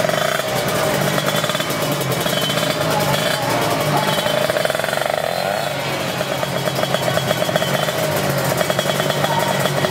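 Two-stroke 155cc drag bike engines running and revving, a rapid, buzzing pulse whose pitch rises and falls about halfway through.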